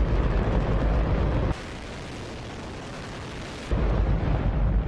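Hydrogen–oxygen rocket engine on a static test firing: a continuous, loud rushing noise strongest in the low end. It drops sharply in level about a second and a half in and comes back loud about two seconds later.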